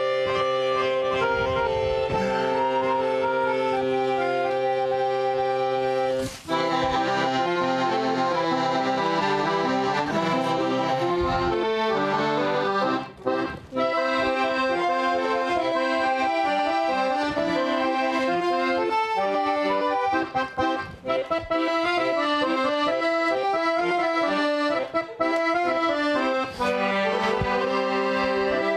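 Accordion music: a quick melody over held chords, with a few brief breaks.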